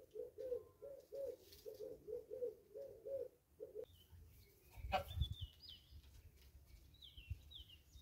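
A dove cooing in a quick, even run of low notes that stops about four seconds in, followed by small birds chirping with high, short sliding notes. A low thump and rumble comes about five seconds in.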